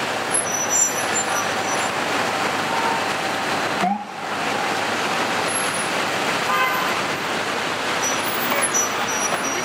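Steady city street traffic noise with a vehicle engine running, and a short horn-like toot about seven seconds in.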